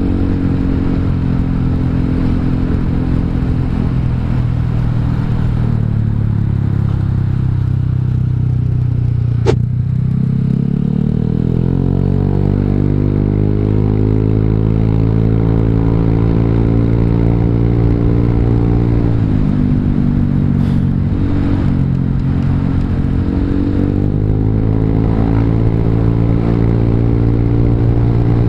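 Honda Vario 150 scooter's single-cylinder engine through an R9 Alpha aftermarket exhaust with the dB killer removed, on the move. The note falls as the rider eases off, then rises as it accelerates about a third of the way in, with a short sharp click in between. It dips briefly about two-thirds in and picks up again.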